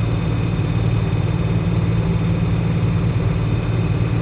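Engine of farm harvest machinery running steadily at a constant, even drone.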